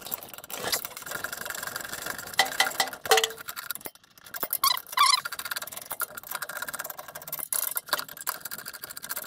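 Ratchet wrench clicking in short runs as bolts are worked inside a metal air cleaner housing, with a couple of brief squeaks about five seconds in.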